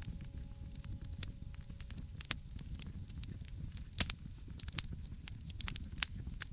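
Wood fire crackling in a fireplace: irregular sharp pops and snaps over a low steady rumble of the flames. The loudest pops fall at the very start and about four seconds in.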